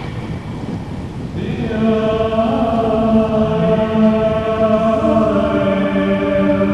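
Droning soundscape music: a chord of long held tones, with a new, fuller chord swelling in about a second and a half in, over a steady low rumble.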